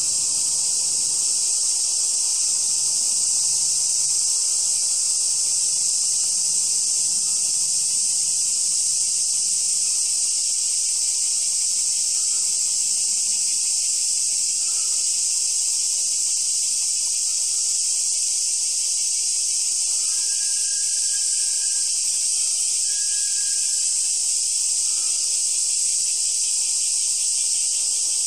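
Summer cicada chorus: a loud, steady, high-pitched drone that never breaks.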